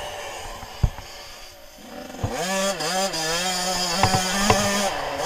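Suzuki RM 85 two-stroke single-cylinder dirt bike engine, low and quiet for the first two seconds with a few knocks. About two seconds in it revs up sharply, its pitch wavering as it climbs, then holds at high revs.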